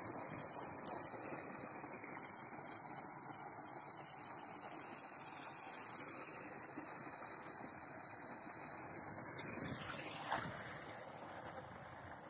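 Water from a 10 hp solar pump's PVC delivery pipe gushing out and splashing into an irrigation channel: a steady rushing noise, showing the pump is delivering water. It fades over the last couple of seconds.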